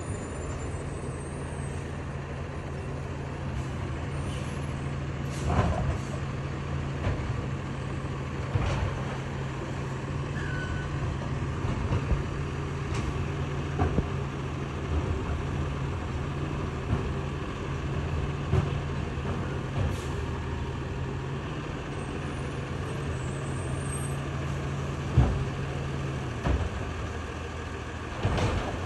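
Garbage truck working down the street: a steady diesel engine drone with several sharp clunks and air-brake hisses, the loudest clunk near the end, after which the drone changes.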